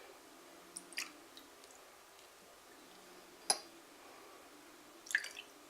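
Water being poured from one drinking glass into another, heard mainly as a few soft clinks and taps of the glassware, the sharpest about three and a half seconds in, with faint dripping.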